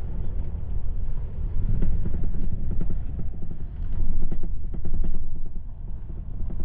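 Pickup truck driving: a steady low road and engine rumble with irregular light knocks and rattles.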